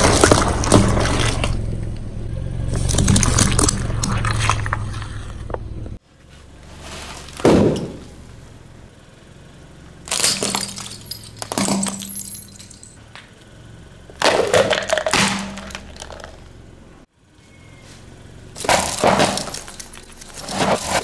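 A car tyre rolling over a tray of eggs, the shells cracking and squashing. Then plastic Rubik's cubes and a snake puzzle cracking and snapping under the tyre in several separate crunches, and plastic disposable lighters crunching and breaking near the end.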